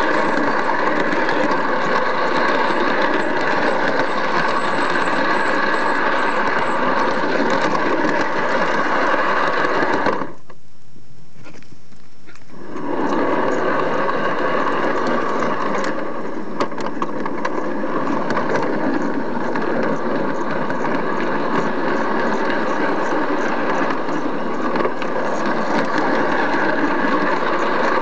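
Garden-railway model locomotive running on its track, its electric motor and gears giving a steady whine. The sound drops away abruptly about ten seconds in and comes back about three seconds later.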